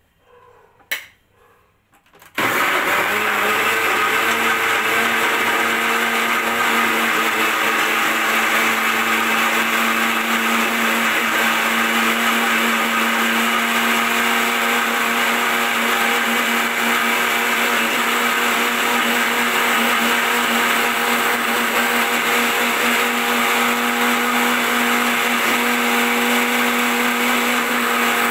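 Electric mixer grinder starting up with a sudden switch-on about two seconds in, after a short knock, then running steadily at full speed. It is grinding chopped bitter gourd and tomato with water into juice.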